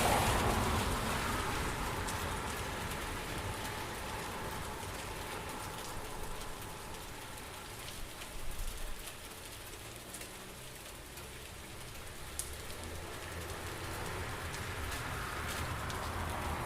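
Steady rain falling, an even hiss with scattered single drops pattering close by and a few louder drop hits about halfway through.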